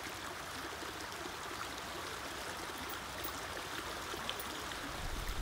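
Small shallow stream running over a pebbly riffle, a steady babbling rush of water. A low rumble comes in near the end.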